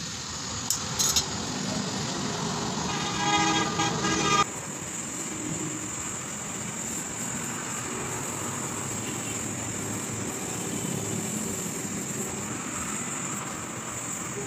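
Road traffic noise with a vehicle horn sounding for about a second and a half, about three seconds in; the sound changes abruptly just after, leaving a steady background noise.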